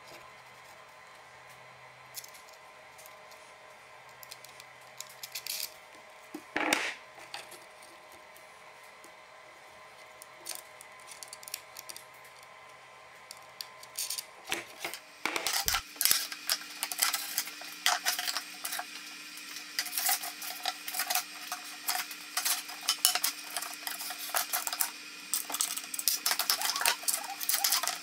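Small clicks, clinks and knocks of hand assembly: a metal bolt and nut being handled and fitted through plywood strips. From about halfway the clatter turns into a busy run of quick clicks and knocks.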